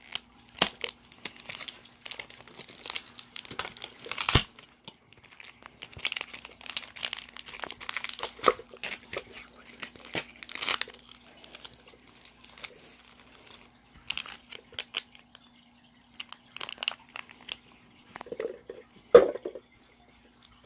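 Clear plastic wrapping and a small packet crinkling and tearing in hands, in quick irregular crackles, with a sharp tap about four seconds in and a louder one near the end. A faint steady hum runs underneath.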